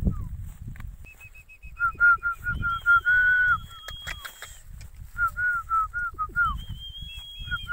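A bird calling in quick runs of short, falling whistled notes, several a second, with a higher, thinner series of notes over them; the calls come in bursts, loudest about two and three seconds in, then pause and start again.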